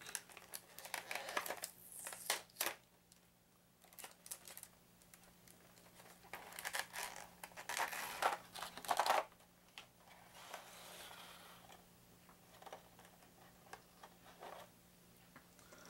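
Clear plastic blister tray crinkling and crackling as fingers press plastic miniatures out of their bubbles, in irregular bursts that are loudest about six to nine seconds in, with only a few light clicks later on.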